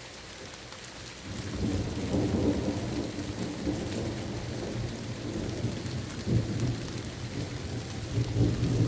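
Steady rain hiss with thunder rolling in about a second in, a low rumble that keeps going and swells again near the middle and near the end.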